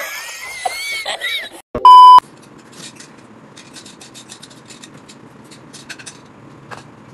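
A man's wheezing, high-pitched laughter breaks off. About two seconds in comes a short, very loud steady beep. After that there is quiet room tone with faint clinks of spoons against bowls.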